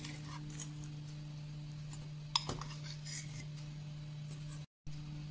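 A steel serving spoon clinks once, sharply, against the steel pot about two seconds in, with a few faint scraping ticks as fruit salad is spooned into a bowl, over a steady low hum. The sound drops out for a moment near the end.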